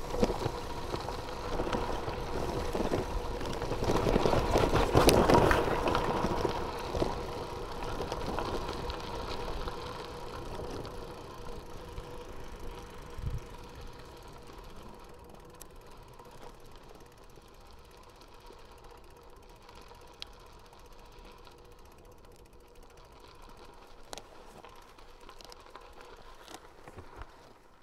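Bicycle rolling on a gravel track: tyre and wind noise, loudest about five seconds in, dying away over the next ten seconds to a low level with scattered clicks.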